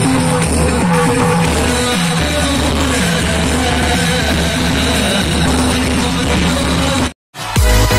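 Background music with a stepping melody over a steady bass. It cuts out abruptly for a moment about seven seconds in, and a different track with a strong regular beat starts.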